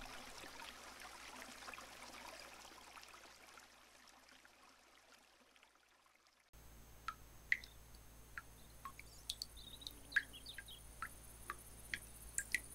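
Faint fading tail of children's music, then after a sudden change a faint outdoor ambience of scattered short bird chirps over a low steady hiss, as a cartoon nature sound bed.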